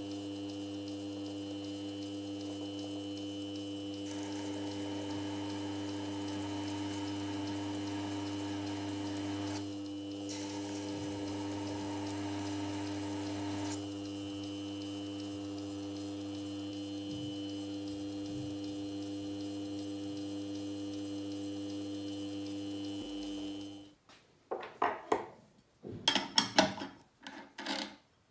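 A small machine runs with a steady hum, with two spells of hissing in the middle. About twenty-four seconds in, the hum stops and small hard objects clink and click.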